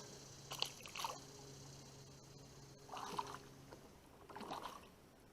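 Faint water sloshing and splashing in a few short bursts, about half a second and a second in and again around three and four and a half seconds in.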